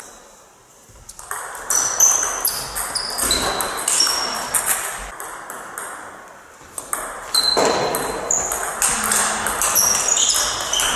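Table tennis rally: the ball clicking off the rackets and the table in quick alternation, each hit with a short ringing ping. The hits begin about a second in, thin out near the middle, then come fast again.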